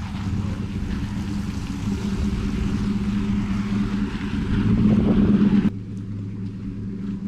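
A vehicle engine running steadily, growing louder over about five seconds, then dropping suddenly to a quieter, lower hum that carries on.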